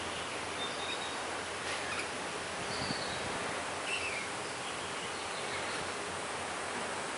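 Steady outdoor background hiss with a few short, high bird chirps scattered through it, one every second or so.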